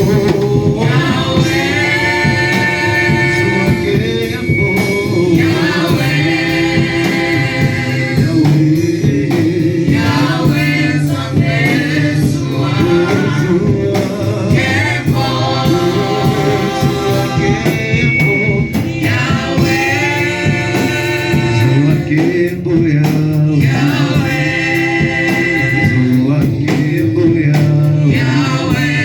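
Gospel worship music: voices singing long held phrases over a steady instrumental accompaniment.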